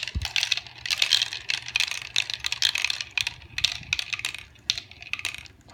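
Several marbles rolling and clattering down a toy marble run, a dense stream of clicks and rattles that thins out near the end. A low thump sounds just as they are set going.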